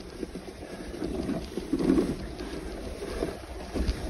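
Dog sled runners sliding and scraping over packed snow in a steady rushing hiss, with wind buffeting the microphone.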